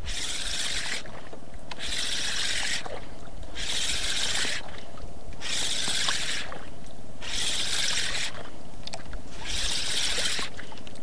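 Sea water sloshing and lapping against the hull of a small outrigger fishing boat, in regular hissing surges about every second and a half to two seconds.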